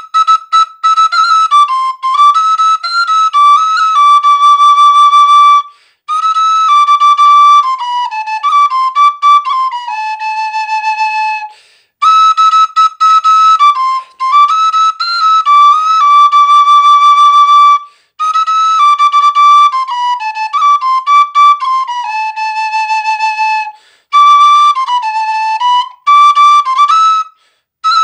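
Frula, the Serbian wooden duct flute, played solo: a clear single-line melody in phrases of about six seconds, each followed by a short break, with the same pair of phrases coming round twice.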